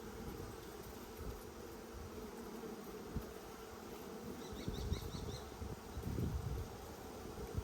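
Honeybees buzzing in a steady hum around an opened nucleus hive during an inspection, with a short run of high chirps about halfway through.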